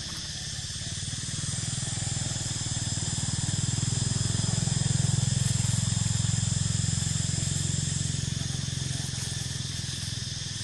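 Engine of a passing motor vehicle, a low pulsing drone that grows louder over a few seconds and then fades away, over a steady high hiss.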